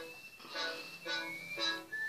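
Background music: a melody of pitched notes coming about twice a second.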